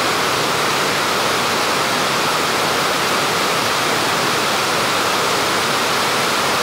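Heavy rain pouring down steadily, an even, unbroken hiss of water.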